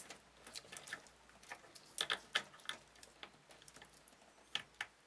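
Small plastic clicks and taps of a SATA data cable and its connector being handled and pushed into a motherboard SATA port: scattered light ticks, a cluster of sharper clicks about two seconds in and two more near the end.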